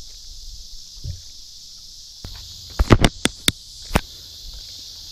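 Steady high-pitched drone of insects, broken about three seconds in by a quick run of five or six sharp knocks.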